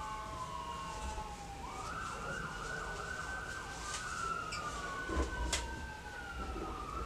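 A siren wailing in long, slow falling and rising sweeps, with a fast warbling stretch about two seconds in. Two sharp clicks come in the second half.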